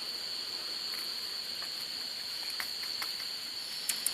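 A steady, high-pitched chorus of chirring insects, with a few faint clicks and a cluster of sharper clicks near the end.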